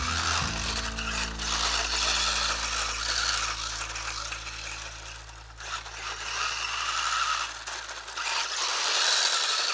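Vintage Tamiya Mighty Frog 2WD electric RC buggy running on a dry dirt track, its tyres scraping over the loose surface, with background music under it.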